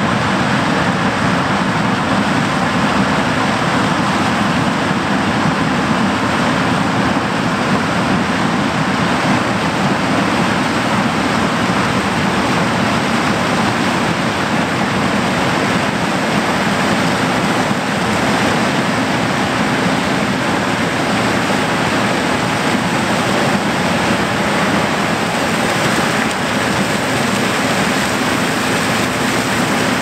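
Fendt Ideal 9T combine harvesting corn at full work: engine, threshing drum and Capello chopping corn head running together as a loud, steady, even noise that holds without a break.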